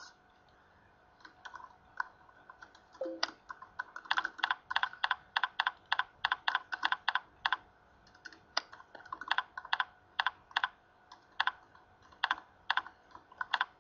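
Typing on a computer keyboard: a few scattered keystrokes at first, then quick runs of key clicks broken by short pauses.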